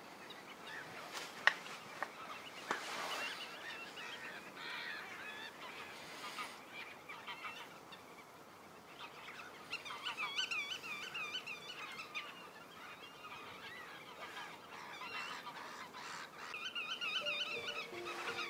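Birds calling in bursts of repeated wavy calls, busiest about halfway through and again near the end, with a few sharp clicks in the first three seconds.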